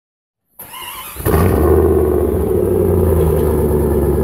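A vehicle engine running loud and steady with a deep rumble. It comes in suddenly about a second in, after a short, quieter lead-in.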